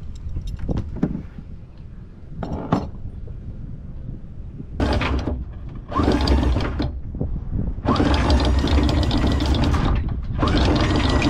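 Anchor windlass hauling in the anchor chain: the motor runs in several stop-start runs with a whine, the chain rattling over the bow roller. Before the windlass starts there are a few light metallic clinks.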